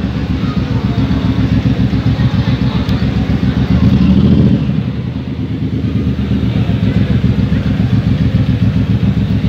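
Big V-twin cruiser motorcycle engine idling with a steady pulsing beat. The throttle is blipped briefly about four seconds in.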